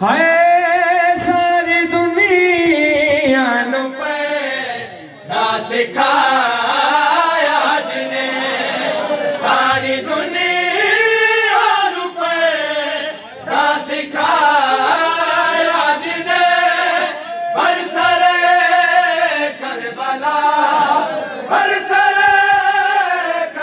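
Men's voices reciting a noha, a Shia lament, chanted loudly in long, drawn-out melodic phrases with short breaks between lines.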